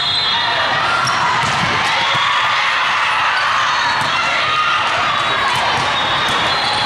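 Busy indoor volleyball hall din: volleyballs being struck and bouncing, sneakers squeaking on the hardwood, and the steady hubbub of players and spectators echoing through the large hall.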